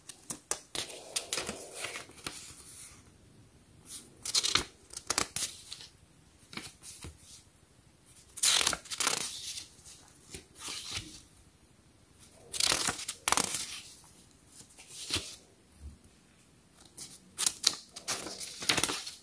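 Cardboard and paper packaging being handled, rustling and scraping in short clusters every second or two.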